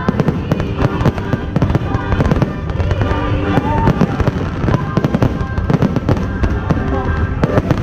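Aerial fireworks display going off in a dense, rapid barrage of bangs and crackles, with a few short whistling glides, over music playing along with the show.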